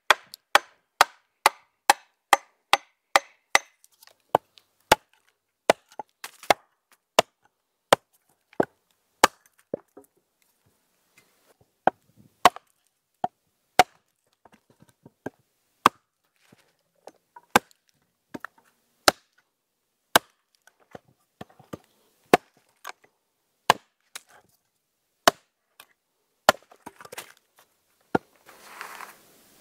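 Pack axe chopping into wood. Sharp blows come about two a second at first, then slower and uneven, and a short burst of noise comes near the end.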